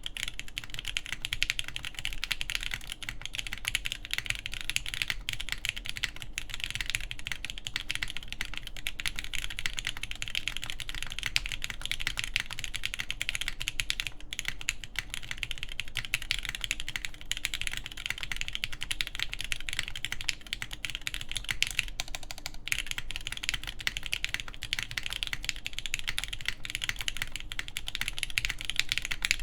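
Continuous typing on a mechanical keyboard with lubed Everglide Tourmaline switches on a forged carbon fibre plate, with GMK keycaps. It is a fast, unbroken stream of key clacks.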